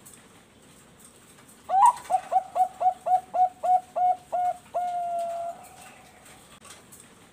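Zebra dove (Thai-bred 'perkutut bangkok') singing one full song phrase starting about two seconds in. It opens with a rising note, runs into about ten short clipped coos at roughly three a second, and ends on one long held coo.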